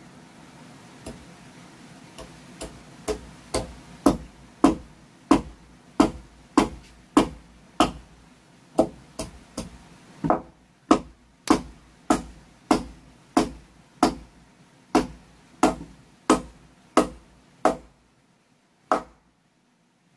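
Hammer striking a wooden plank in a steady rhythm of about one and a half blows a second. The blows start soft and grow louder, then stop, with one last blow near the end.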